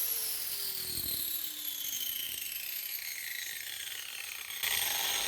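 Angle grinder fitted with a Kutzall shaping dish spinning down after being switched off, its whine falling steadily in pitch. There is a single knock about a second in and a short burst of rubbing noise near the end.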